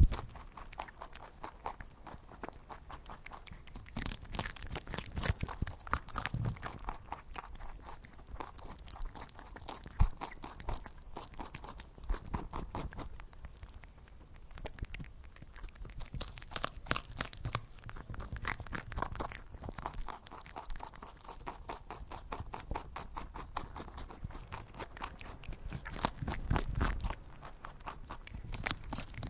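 An animal chewing its feed: dense, irregular crunching clicks that come in clusters, easing off for a while in the middle.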